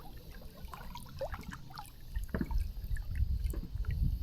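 Small splashes and drips of water at the surface, scattered and irregular, over a low rumble.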